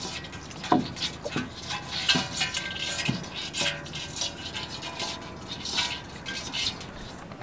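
A live crab's legs scratching and tapping on a metal basin: irregular light clicks and scrapes.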